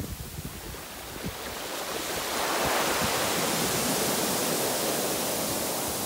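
Pacific Ocean surf washing up a sandy beach. The hiss of the breaking wave and rushing foam swells about two seconds in, then stays steady.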